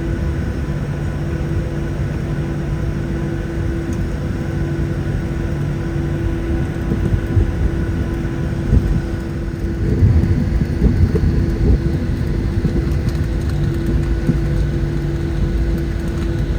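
Cabin noise of a Boeing 737-700 taxiing: a steady hum from its CFM56-7B engines at low power over a low rumble, with a few louder rumbling surges around the middle.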